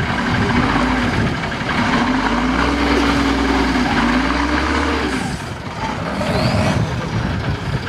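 A competition trial truck's engine working under load as the truck crawls through a muddy ditch. The revs rise and fall and then ease off about five seconds in.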